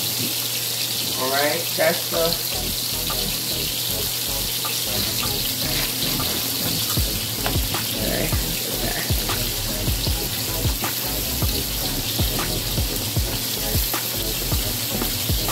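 Steady sizzle of steak frying in a hot pan, with frequent clicks and scrapes of a fork stirring seasoning into flour in a plastic container.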